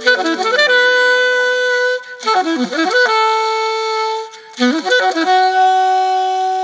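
Background music: a solo melody instrument plays three quick runs of notes, each ending on a long held note.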